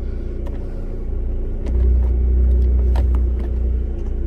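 Car engine idling steadily with a deep rumble, its pitch unchanging, and a few faint clicks over it.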